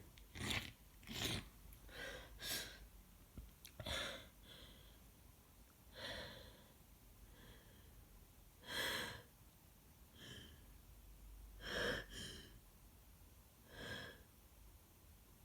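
A woman with a head cold and a stuffy nose sniffling and taking short, catching breaths, about a dozen soft sniffs and gasps spaced a second or two apart, with no full sneeze.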